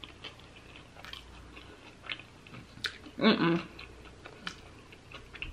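A person chewing a mouthful of chicken burrito with the mouth closed, soft wet clicks and smacks. About three seconds in comes a short hummed "mm-mm" of enjoyment.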